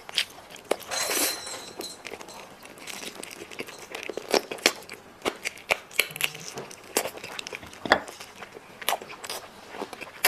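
Close-miked biting and chewing of a cola-braised chicken drumstick, meat pulled off the bone with crunchy cartilage: a run of sharp wet clicks and crunches, with a longer tearing sound about a second in.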